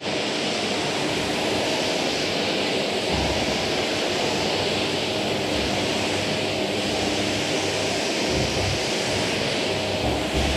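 Vacuum cleaner running steadily: a constant rush of air with a motor hum held at one pitch, and a few dull low surges as the nozzle is pushed over the floor.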